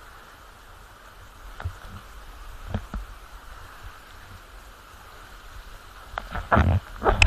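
Waterfall water rushing steadily, with a few short dull thumps, the loudest just before the end.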